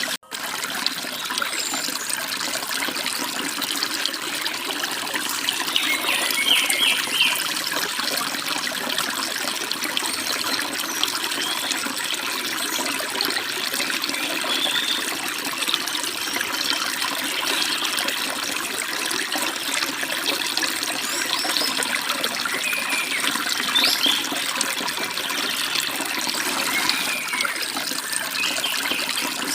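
Mountain stream babbling and splashing over small falls in a steady, hiss-like rush, with scattered short bird chirps now and then. The sound cuts out for a split second just after the start.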